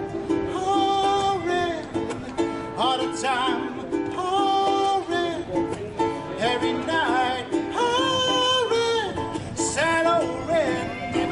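Live acoustic band playing a wordless passage of a slow pop song: strummed acoustic strings keep up a repeating chord pattern while a lead melody line holds and slides between notes above them.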